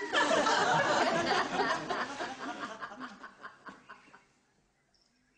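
Studio audience laughing: a burst of laughter that swells at once, holds for about two seconds, then dies away over the next two.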